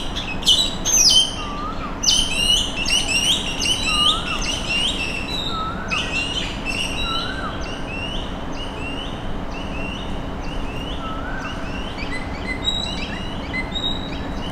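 Several songbirds chirping busily, the chirping thinning out in the second half, with a lower rising-and-falling note coming back every few seconds. A faint steady hum runs underneath.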